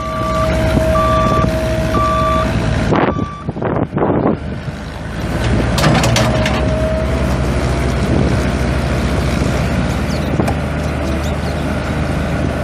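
Komatsu S4D95L-1 four-cylinder diesel of a compact excavator running, while its warning beeper sounds about once a second until roughly three seconds in. The engine then runs on alone, with a few short rushes of noise.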